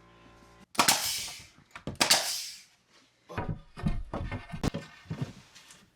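Two sharp blasts of hissing air from a pneumatic nail gun, each fading over about half a second, then a run of light knocks and taps on wooden trim.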